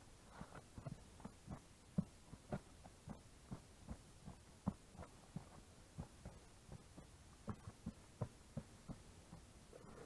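Faint, irregular dull thumps, about two or three a second, of rubber boots stepping on loose soil and rock.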